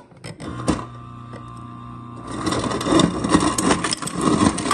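A refrigerator's door ice dispenser set to crushed ice: its motor hums steadily, then about two seconds in, crushed ice starts clattering out.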